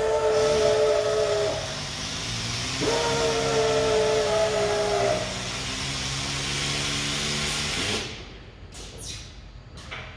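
Air motors of an all-pneumatic stacker crane running: a steady hiss of compressed air with a whistling whine that sags slightly in pitch, dropping out twice with a lower hum underneath. About eight seconds in, the air cuts off and it goes quieter, with a few faint clicks.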